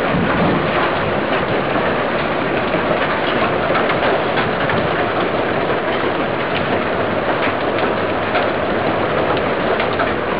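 Heavy hail falling in a storm: a steady, dense clatter of many hailstones striking the lawn and roofs.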